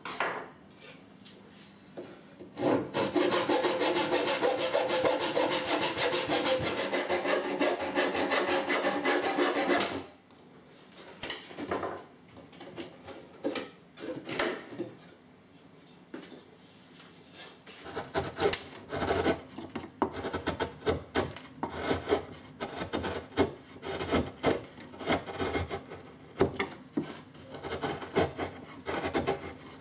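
Hand tools working wood: several seconds of loud, fast, even scraping strokes. From about eighteen seconds in comes a run of short, irregular cuts as a hand chisel pares wood from a block inside a cello's rib garland.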